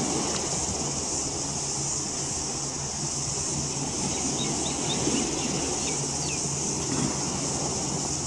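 Harbour waterfront ambience: a steady low rumble with a hum under it and a constant high hiss, with a few faint bird chirps about four to six seconds in.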